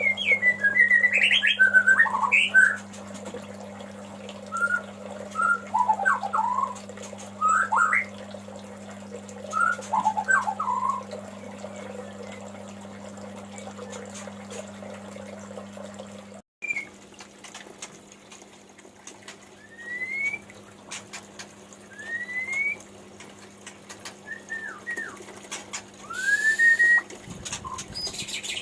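White-rumped shama (murai batu) calling: a quick run of short whistled notes and chirps at first, then after a pause a few separate rising whistles spaced a second or two apart. A steady low hum sits under the first half.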